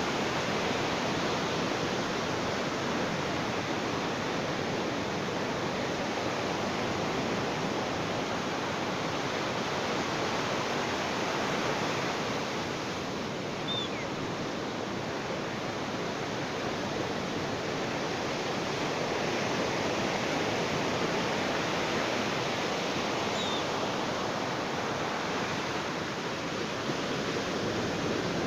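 Ocean surf washing onto a beach: a steady rushing of waves that slowly swells and eases. Two faint, brief high chirps come through, about halfway and near the end.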